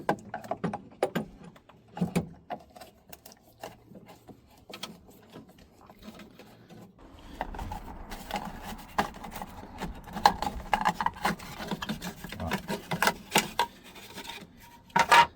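Spanner working a stiff, long-untouched gas pipe fitting loose: scattered metal clicks and knocks, then steadier scraping and rattling from about halfway through.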